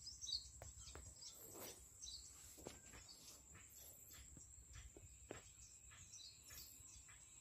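Faint riverside ambience: scattered short bird chirps over a steady high-pitched whine and a low rumble, with a few soft knocks and rustles, the sharpest about a third of a second in.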